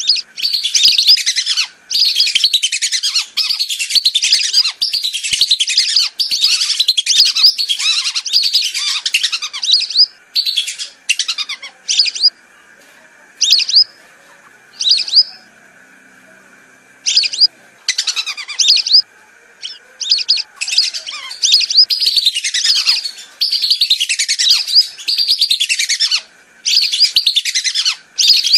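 Whistling ducks' shrill whistled calls in rapid, overlapping runs like a flock chattering. They thin to a few single calls in the middle and build back to a dense chorus near the end. This is a belibis lure-call track, mixed from three calling recordings.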